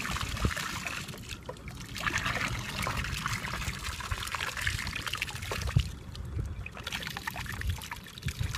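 Water pouring and trickling out of a plastic bottle trap as it is lifted and tipped, with splashing in shallow water. It comes in spells, easing off briefly twice.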